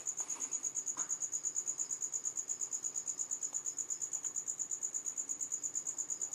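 A cricket chirping in a steady high trill of about ten pulses a second.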